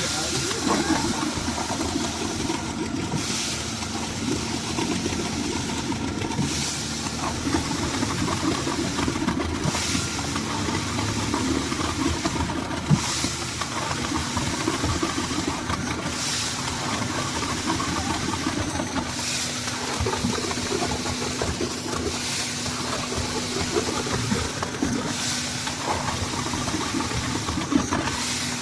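Engine-driven concrete mixer running steadily, with a hissing swell about every three seconds.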